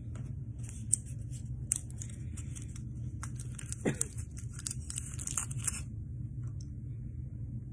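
Crackling and rustling with several sharp clicks, over a steady low hum; the crackling stops about six seconds in. A short squeak falling in pitch sounds near the middle.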